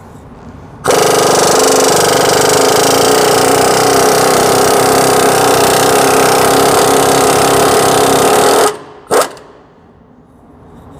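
Matco MT2765 half-inch air impact wrench hammering a large suspension bolt loose, with the nut held from behind by an angled wrench. It runs hard for about eight seconds, then gives one short extra burst about half a second later.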